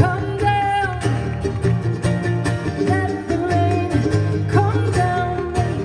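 Live acoustic music: acoustic guitar and mandolin playing a song, with a melody that slides between notes over a steady strummed pulse.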